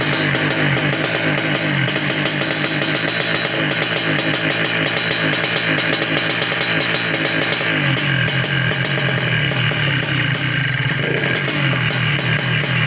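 Suzuki Satria's single-cylinder two-stroke motorcycle engine running near idle, its speed rising and falling slightly.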